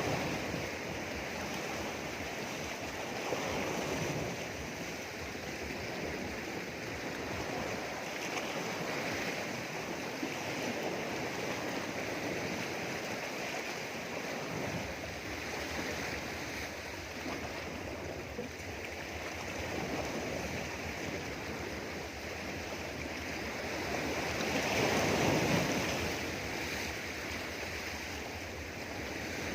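Sea waves washing around rocks: a continuous rush of water that swells and eases every few seconds, with a louder surge about 25 seconds in.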